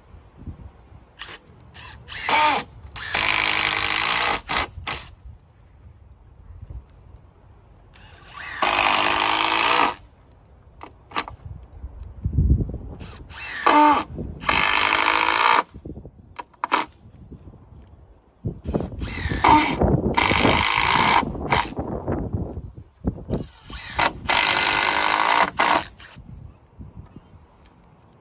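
Milwaukee cordless impact driver driving screws into 2x4 lumber: about six runs of one to two seconds each, with short pauses between.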